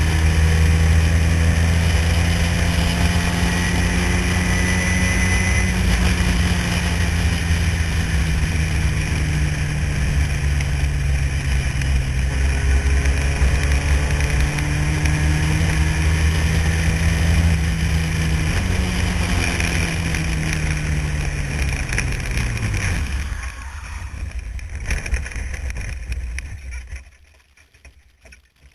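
Renault-engined single-seater formula car's engine heard from the cockpit, running at steady high revs under a rush of wind. About 18 seconds in its pitch falls away, then the sound turns to an uneven rumble and stops about 27 seconds in.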